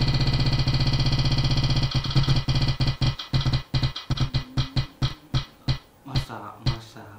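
Spin-the-wheel app's ticking sound effect: a rapid run of pitched clicks that slows as the wheel decelerates, the ticks spreading out to about two a second near the end.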